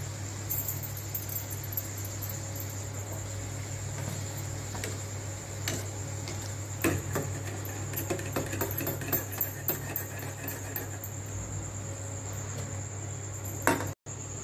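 A wheat-flour poori frying in hot oil in a steel kadai: scattered crackling, with clicks and scrapes of a slotted steel spatula against the pan, most of them between about six and eleven seconds in as the poori is turned and lifted out. A steady low hum and a thin high tone run underneath.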